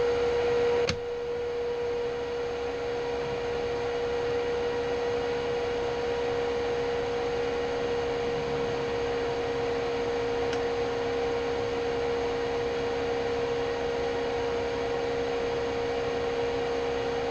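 Steady electric hum from running shop machinery, one even tone with overtones. There is one sharp click about a second in, after which the hum goes on slightly quieter.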